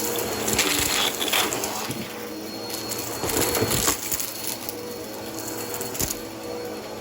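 Vacuum cleaner running over a carpet square with a steady motor hum, and irregular crackling and crunching as crunchy debris is sucked up, loudest in a few clusters.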